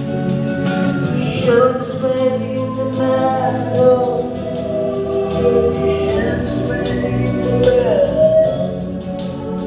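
Live band playing a song: held, gliding sung notes with layered vocal harmonies over acoustic guitar, keyboards and a drum kit with light cymbal strokes.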